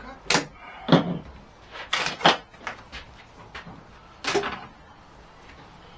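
A handful of sharp knocks and clunks of hard objects being handled and set down: about five, the loudest about a second in and just after two seconds.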